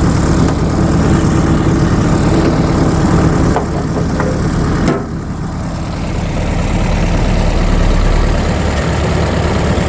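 An engine idling steadily, with a short dip in level about halfway through.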